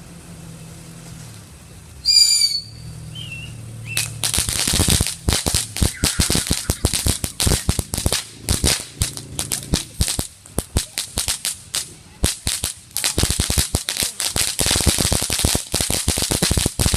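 A short, wavering high whistle about two seconds in, then a long string of firecrackers going off from about four seconds in: rapid, sharp cracks, many a second, with brief gaps.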